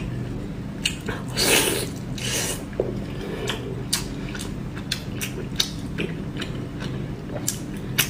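Close-miked chewing of fried pork belly: a run of sharp, irregular clicks, with a longer noisy chewing stretch about a second and a half in.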